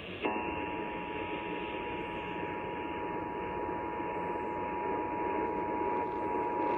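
Emergency Alert System attention signal: two steady tones (853 and 960 Hz) sounding together over radio hiss, beginning just after the start. It marks the alert that follows, here a coordinated monthly test.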